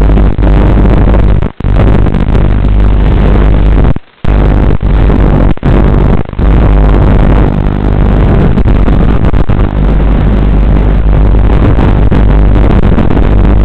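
Loud, steady drone of an FPV model aircraft's electric motor and propeller, holding a fairly even pitch, cutting out briefly several times.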